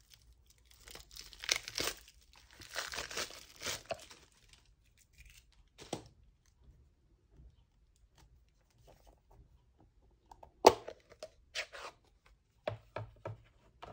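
Plastic wrap being torn and peeled off a new ink pad, crinkling for a few seconds. Later there is one click, then a sharp knock and several lighter taps.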